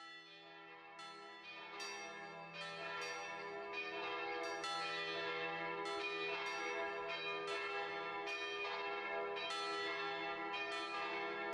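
Bells ringing in a peal, a new stroke about every second with each one ringing on over the last. It grows louder over the first few seconds and then holds steady.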